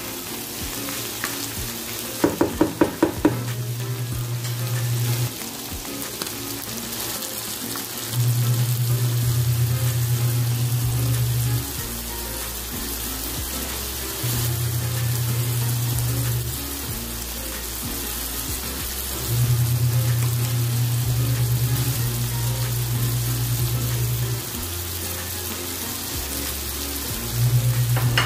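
Lamb, onion and ginger sizzling as they fry in a pan, under background music with a bass line that steps between notes every few seconds. A quick run of taps comes about two seconds in.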